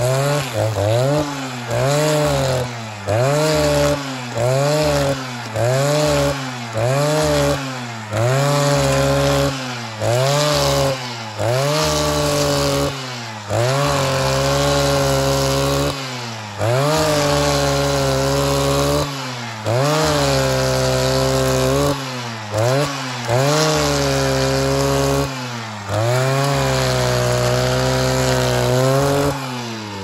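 Two-stroke chainsaw cutting larch wood, revved in short bursts about once a second, then held at high revs for longer cuts of a second or two at a time, each time rising and falling back toward idle. The revs drop away at the very end.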